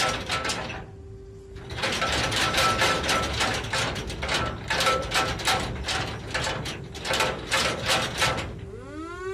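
Ship's anchor windlass paying out anchor chain: regular metallic clanks of the links about four times a second, broken by a short pause about a second in. Near the end a rising siren-like tone starts.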